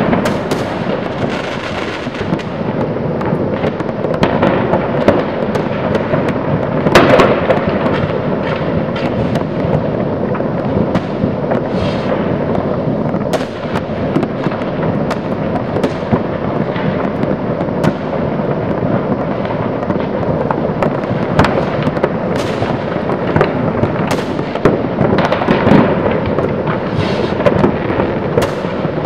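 New Year's Eve fireworks going off all over a city: a constant rumble and crackle of many rockets and firecrackers, with frequent sharp bangs throughout, the loudest about seven seconds in.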